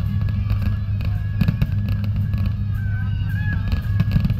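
Fireworks bursting overhead, a rapid run of pops and crackles, over music.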